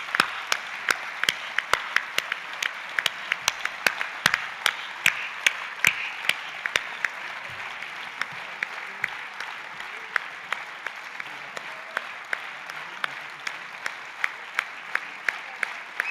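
Conference audience applauding steadily, with sharp, louder hand claps about three a second from people clapping close to the lectern microphone.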